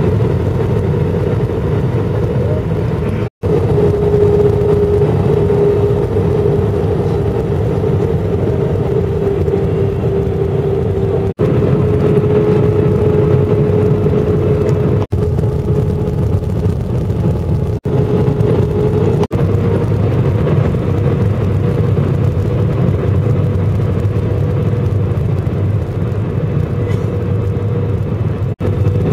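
Jet airliner cabin noise from a seat beside the wing engine while descending on approach: a steady rumble of the turbofan engines and airflow with a held hum. The sound cuts out for an instant several times.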